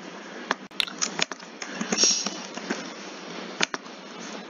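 Scattered light clicks of a computer keyboard and mouse over a steady microphone hiss, with a brief louder rush about two seconds in.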